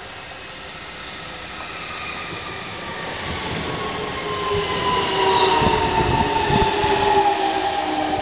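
JR Kyushu 303 series electric train slowing as it pulls into a station, its traction motors whining in a steadily falling pitch that grows louder as the train draws alongside. Its wheels thump several times over the rail joints about two-thirds of the way through.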